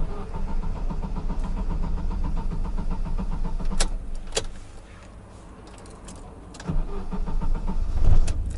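GAZelle Next van's engine starts and runs a few seconds, then two sharp clicks sound and the engine dies away as it switches over to propane. It stalls on switching to gas, the sign of a fault in the propane system. Near the end the engine is started again.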